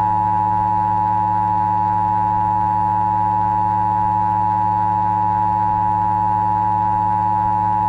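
Emergency alert system attention signal: a steady two-tone beep near 1 kHz held unbroken, over a low steady hum.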